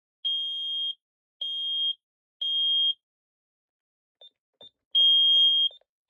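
LYNX-R alarm keypad's built-in sounder beeping: three high, even beeps about a second apart, then after a pause a couple of short beeps with faint button clicks and a longer, louder beep near the end.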